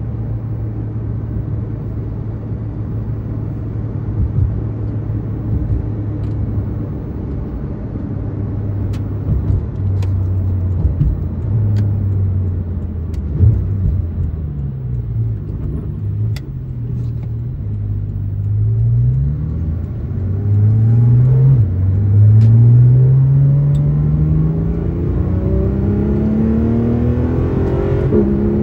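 Porsche 991.2 911 GT3 RS Weissach's 4.0-litre naturally aspirated flat-six, heard from inside the cabin. It runs steadily at low revs at first, then pulls away with the revs rising and dropping back at each gearshift. The pulls grow longer and climb higher in the second half.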